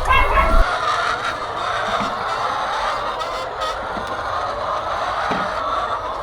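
Many laying hens clucking and calling at once, a dense, steady chorus of overlapping calls. A low hum cuts off about half a second in.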